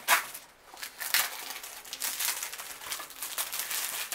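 Clear plastic shrink-wrap being torn and peeled off a Blu-ray case: crinkling, crackling plastic, with sharper rips near the start and about a second in.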